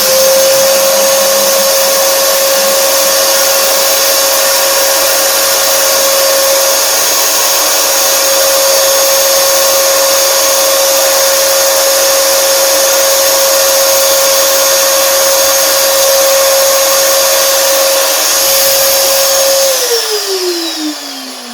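A handheld electric cleaning blower or vacuum running at full speed: a steady high-pitched motor whine over a rush of air. Near the end it is switched off and winds down, the whine falling in pitch as it fades.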